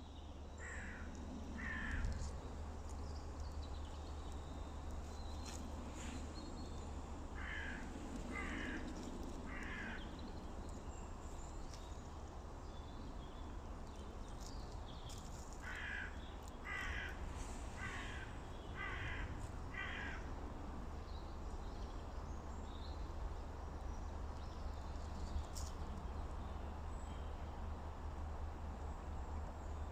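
Crows cawing in short runs: two caws, then three, then five, about a second apart, over a steady low rumble.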